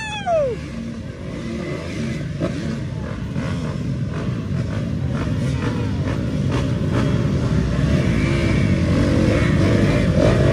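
Dirt bike engine running and revving. It opens with the tail of a few quick throttle blips, then settles into a steady rumble that grows louder toward the end.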